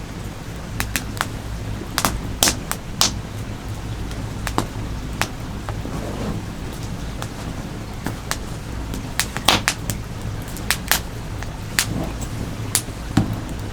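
Oak firewood campfire crackling, with irregular sharp pops a few times a second over a steady low rumble.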